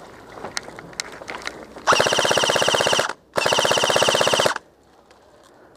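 ICS G33 airsoft electric rifle firing two full-auto bursts of just over a second each, with a short break between them. Each burst is an even, rapid rattle of shots.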